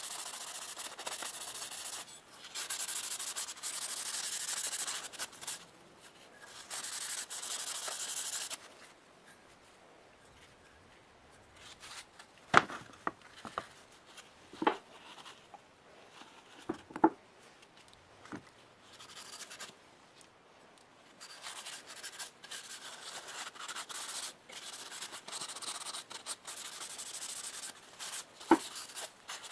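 Abrasive rubbing on a cleaver in repeated strokes of a second or two each. It stops for a while midway, with a few sharp knocks in the gap, then starts again near the end.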